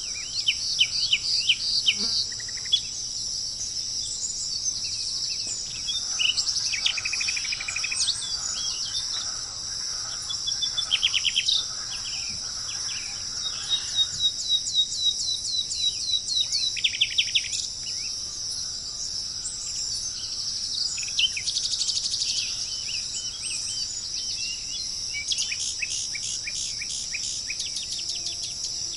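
Tropical forest ambience: a steady, high-pitched insect drone throughout, over which birds call again and again in quick series of short, clipped notes.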